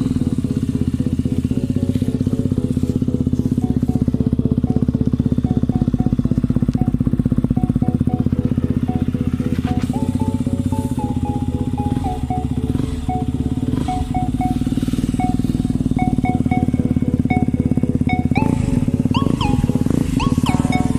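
KTM Duke motorcycle with an aftermarket slip-on exhaust idling steadily, with no revving.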